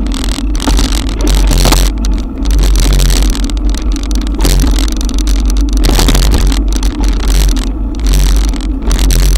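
Heavy wind rumble and rain noise on a bike-mounted action camera's microphone, riding through a downpour, with scattered sharp ticks and a few louder gusts.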